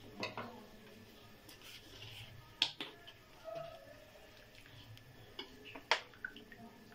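Steel ladle stirring soup in an aluminium pan, with a few sharp clinks of metal against metal scattered through it.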